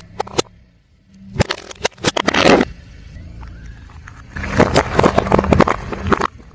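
A car tyre rolling over brittle objects and crushing them: two bouts of dense cracking and crunching, the first about a second and a half in and the second a little past the middle, over the low rumble of the slow-moving car.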